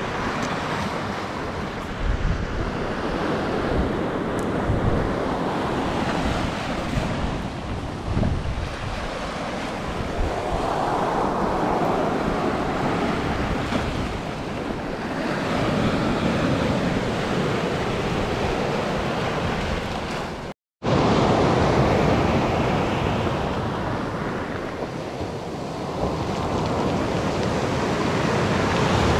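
Sea surf breaking and washing up the beach, swelling and falling back every few seconds, with wind buffeting the microphone. The sound cuts out for a moment about two-thirds of the way through.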